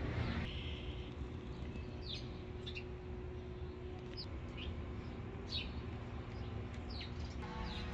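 Small birds chirping: short, high, falling chirps at irregular intervals, over a steady low rumble.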